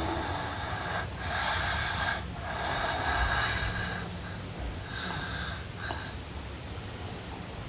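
A girl snoring in her sleep: two long, rasping breaths of about a second each, then shorter, softer ones.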